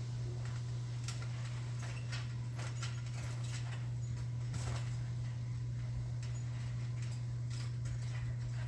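A steady low hum with faint, scattered light taps and clicks over it.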